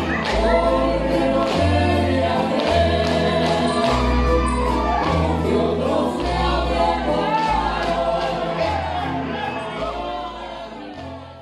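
Recorded Mexican son jarocho music with singing over a bass line, played through loudspeakers; it fades down near the end.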